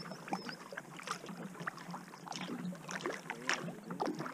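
Kayak paddle strokes in calm river water: the blade dipping in, with drips and small splashes coming in quick, uneven plinks.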